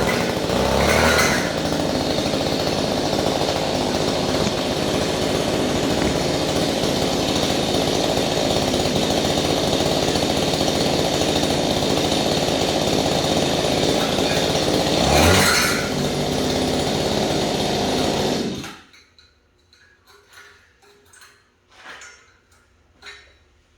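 Small gasoline engine, just brought back from a no-start and running with its air filter off, running steadily with one brief louder surge about fifteen seconds in. It is shut off about two-thirds of the way through and stops suddenly, leaving a few faint knocks.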